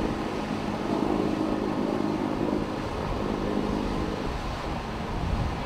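Assault amphibious vehicles' engines running steadily: a low rumble with an even engine hum that fades out about four seconds in.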